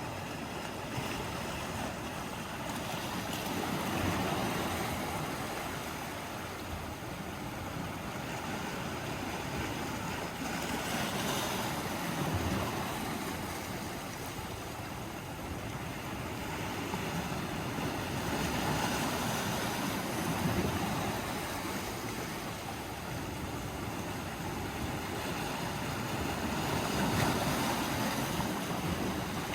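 Sea waves washing onto the shore, the surf swelling and easing every several seconds.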